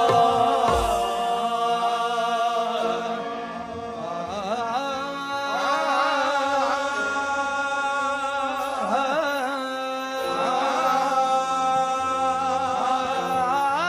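Qawwali music: harmonium holding steady notes, joined about four seconds in by a singer's long, wavering, sliding vocal lines.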